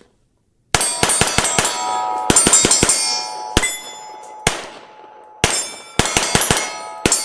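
Rapid handgun fire at steel plate targets: quick strings of shots, each hit clanging, with the steel ringing on between strings. First comes a string of about six shots, then about five, two single shots, a string of about seven, and two more near the end.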